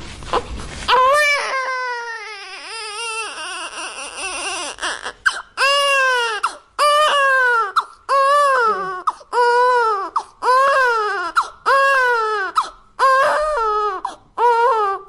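Newborn baby crying: a long wavering wail about a second in, then a run of short cries, each rising and falling in pitch, about one a second.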